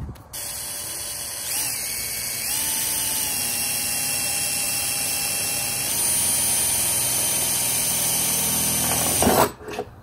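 Cordless drill boring a 5/32-inch hole through a plastic car bumper cover. The motor whines steadily, rising in pitch about two seconds in and running a little faster and louder about six seconds in. It stops just before the end with a brief loud scrape.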